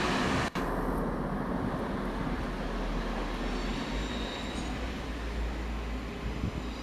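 A train running through the station with a steady rumble, broken by a brief dropout about half a second in.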